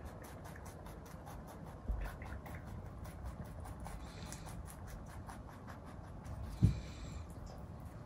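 Rabbit chewing carrot leaves and stems: a quick, steady run of small crunching clicks, about five a second. Two dull low thumps break in, one about two seconds in and a louder one near the end.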